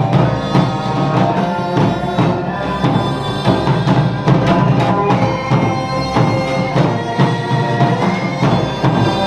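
Background music with a steady percussive beat and sustained melodic notes.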